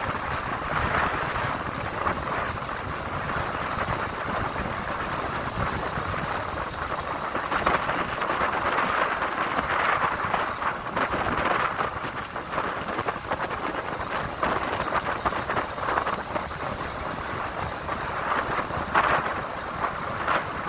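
Wind buffeting the microphone and road noise from a vehicle moving along a paved road, rising and falling in small swells.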